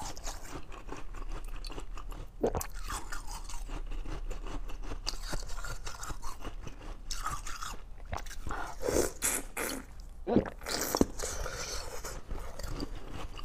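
Crunching chewing of a chunk of slushy ice frozen in a water bottle, with several sharp, louder bites through the ice spread across the stretch.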